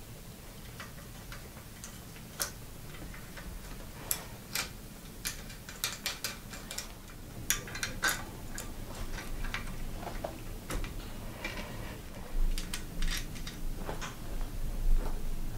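Small irregular clicks and taps of bicycle V-brake hardware being handled: a brake pad's post, spacers, washers and nut tapping against the brake arm as the pad is fitted. A few louder knocks come near the end.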